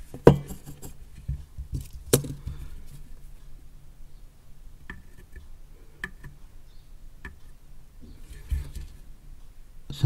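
Small handling noises during soldering on a microphone circuit board: two sharp clicks in the first couple of seconds, then a few faint ticks, over a low steady hum.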